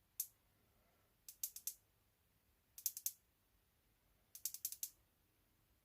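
Side switch of a YLP flashlight clicked in quick runs, as in multi-click mode commands: a single click, then three rapid runs of three to five sharp clicks each.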